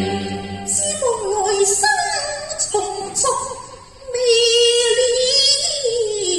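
Female voice singing a Cantonese opera (粵曲) passage in phrases that slide and waver in pitch, with vibrato. Instrumental accompaniment fades about a second in.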